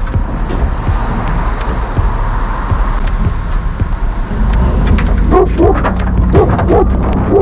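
A vehicle's engine and road noise running steadily. From about five seconds in, a Cane Corso barks in a rapid string of barks, a few a second.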